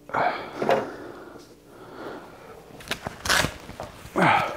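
A man coughing and huffing out breath in four or so short bursts, clearing dust he has breathed in while sanding a cracked vinyl and foam dash pad.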